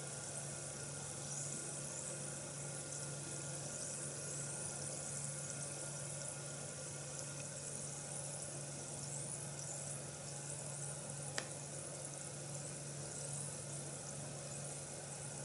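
Bath bomb fizzing as it dissolves in water: a steady, quiet fizzing hiss with a low hum underneath. One sharp click about eleven seconds in.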